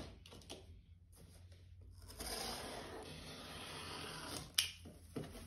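Packing tape on a cardboard box being cut open with a small box cutter: a sharp click, a few light scrapes, then a steady scraping rip of the tape along the seam for about two seconds, ending in a sharp click.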